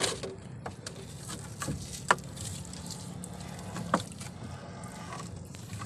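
Water washing along the sides of a small wooden outrigger canoe as a gill net is hauled aboard over the gunwale, with a few sharp knocks, the loudest about two seconds in and another near four seconds.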